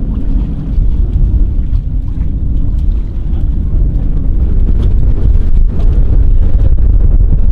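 Wind buffeting the microphone: a loud, rough, uneven rumble with no steady pitch, growing louder about halfway through.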